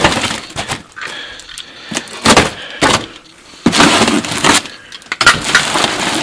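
Cardboard packaging and plastic wrap being torn open and crumpled by hand, in irregular crackling rips and crunches. There are a couple of sharp tears in the middle and longer spells of ripping near the end.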